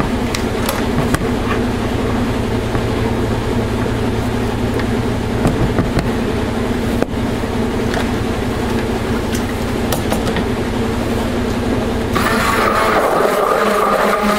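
Steady mechanical hum of a washing machine running, with a few light knocks. About twelve seconds in, a stick blender starts up in the soap batter, adding a higher motor whine.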